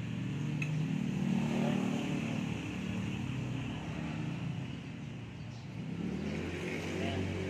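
A motor vehicle's engine running, with its level swelling about a second in and again near the end.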